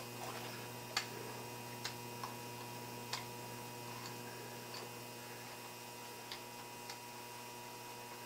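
A handful of faint, irregular light clicks and taps as small metal parts and screws are handled while an aluminium standoff is bolted to a bracket, over a steady electrical hum.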